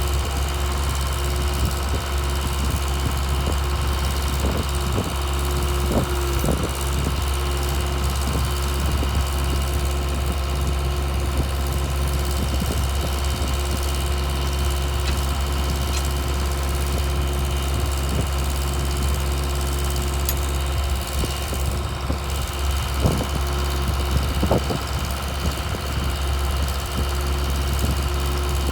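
Mitsubishi diesel engine of a Case DH4B trencher running steadily at a constant speed, with a few short clunks now and then.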